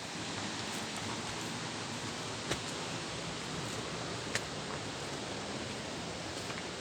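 Steady rushing of a waterfall, with two short sharp clicks about two seconds apart midway.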